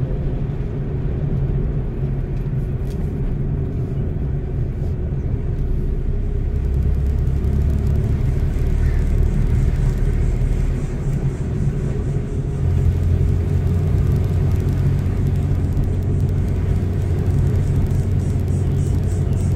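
Car engine and tyre noise heard from inside the cabin while driving, a steady low rumble whose engine note shifts twice, about a third and two thirds of the way in.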